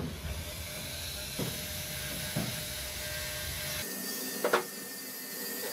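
Handheld rotary tool running with a steady high whine, its small abrasive bit grinding the stainless-steel frame of an iPhone XS Max to strip the old polish. The tone shifts higher a little over halfway through, with a few light knocks and one sharper knock about four and a half seconds in.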